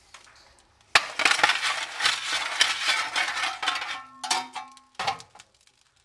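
A steel fire shovel scraping and clattering as coke is shovelled into a steam locomotive's firebox, starting with a sharp knock about a second in. Near the end the metal rings briefly, then a single click.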